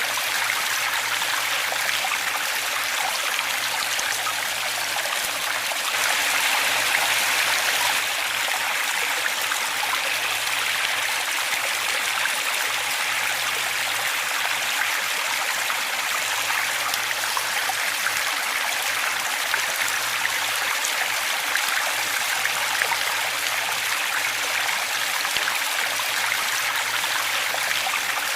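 Waterfall: water rushing and splashing in a steady, even stream of sound, briefly a little louder about six seconds in.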